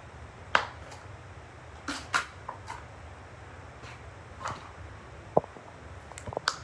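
Sticky slime being squeezed and pressed into a large mass, giving short scattered pops and clicks now and then.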